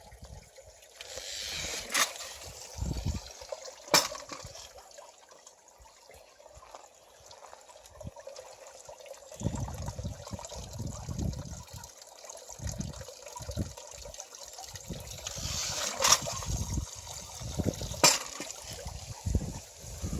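Stream water trickling and splashing over a small wooden water wheel, with a sharp knock roughly every two seconds in two pairs. Low, uneven thuds come in over the second half.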